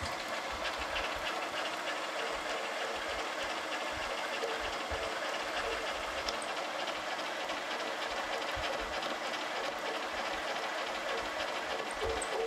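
A 60-degree countersink cutter turning at low speed and cutting a screw recess into an annealed A2 tool steel vise jaw: a steady metal-cutting chatter that stops near the end.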